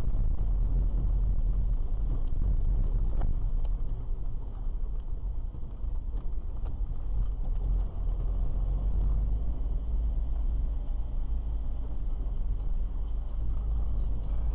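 A car driving along a road, heard from inside the cabin: steady low engine and tyre rumble, with a few faint ticks.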